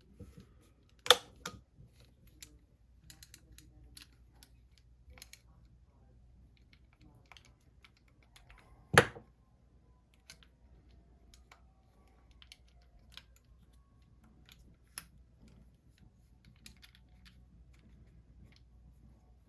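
Small metal and plastic reel parts being handled and fitted on a fishing reel: scattered, irregular light clicks and taps, with two sharp louder knocks, about a second in and about nine seconds in.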